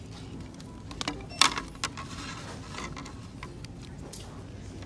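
Packaged merchandise handled on a store shelf: a few short clicks and crinkling rattles of plastic packaging and hangers, the loudest about a second and a half in.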